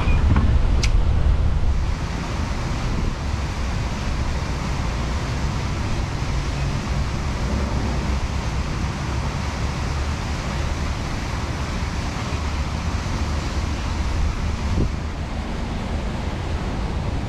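Steady wind rumbling on an outdoor microphone, a little stronger in the first two seconds, with one sharp click about a second in.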